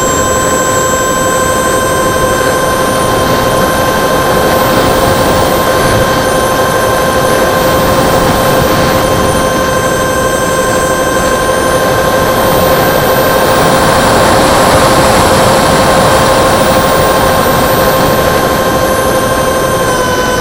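Electric ducted fans of a model Cessna 550 jet running in flight: a steady rushing whine with a very high pitch that drifts up and down, swelling slightly past the middle.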